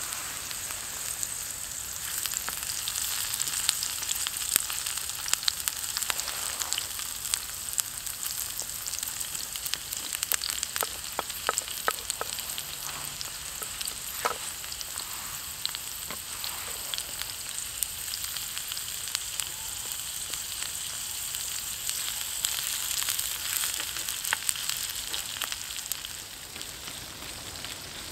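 Onions, potatoes and carrots frying in a pan over a small wood-burning stove: a steady sizzle with many scattered pops and clicks.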